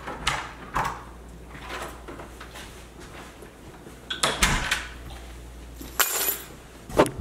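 A front door being opened and then shut with a knock about four seconds in, followed about six seconds in by a set of keys tossed onto a hard countertop with a brief jangle.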